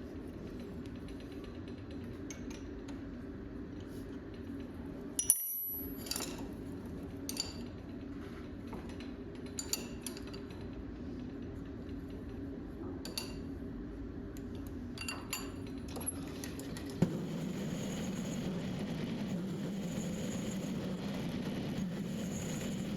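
Small metal lathe running with a steady hum while turning steel, with scattered sharp metallic clinks. The hum drops lower about seventeen seconds in.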